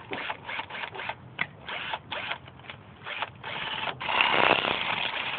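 Cordless drill started and stopped in many short bursts, then held running for over a second near the end, its bit churning into gritty soil.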